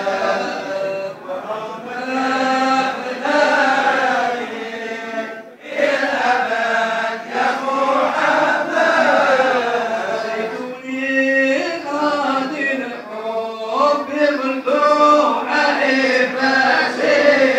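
A group of men's voices chanting Sufi dhikr together, a continuous sung chant with long held notes that bend up and down.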